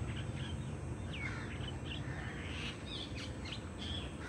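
Small birds chirping now and then in short high calls over a steady low background rumble.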